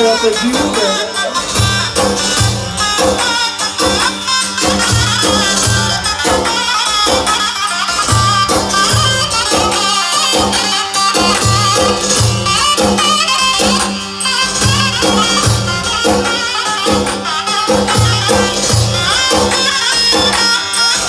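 Loud folk-style music with a steady drum beat and jingling percussion.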